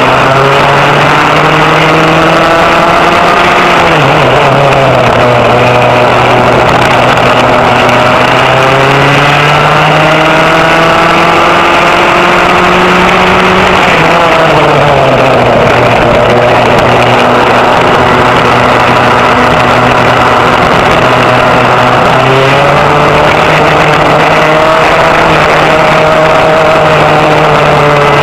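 Vintage rear-engine racing kart's engine at racing speed, heard onboard. Its pitch drops as the kart slows for a corner about four seconds in and again midway through, climbs on the straights, and holds high near the end.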